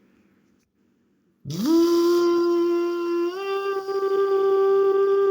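A person humming a steady, engine-like drone by mouth, imitating a construction machine's motor. It starts about a second and a half in with a quick upward slide, steps up slightly in pitch about three seconds in, and holds steady after that.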